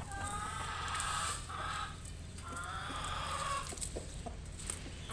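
White Leghorn rooster calling to the hens: two drawn-out calls, the first about two seconds long, the second shorter, starting about half a second after the first ends.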